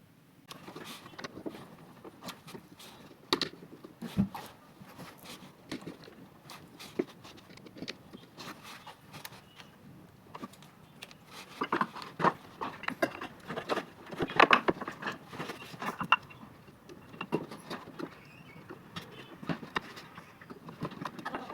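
Irregular clicks and knocks of hard objects being handled, with no steady rhythm; they come thickest about halfway through.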